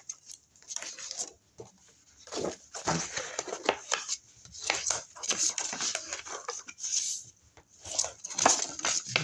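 Cardstock being handled and folded on a table, creases pressed in by hand: scraping, rustling and light tapping in several bursts with short pauses.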